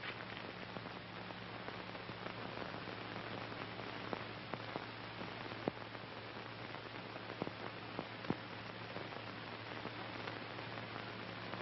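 Steady hiss with a low hum underneath and a few faint scattered clicks: the background noise of a worn, old film soundtrack.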